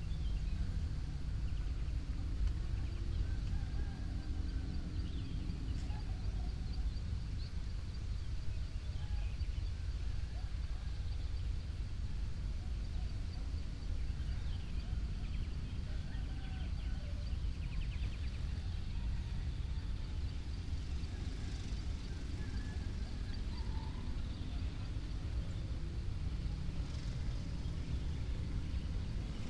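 Early-morning outdoor ambience: a steady low rumble with faint, scattered bird calls throughout.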